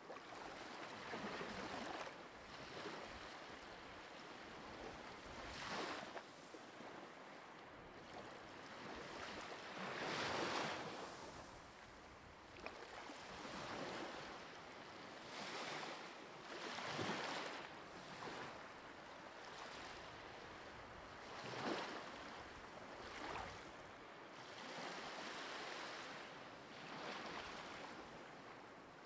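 Faint ocean waves washing in, the surf swelling and easing every few seconds.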